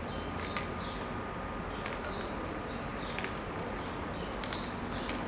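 Steady outdoor street background noise with a faint steady tone, broken by several scattered sharp clicks or taps at irregular intervals.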